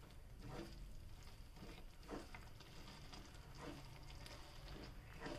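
Spatula stirring rice and sorghum flour into hot water and oil in a steel pan: faint soft scraping and squishing strokes, roughly one every half second to a second.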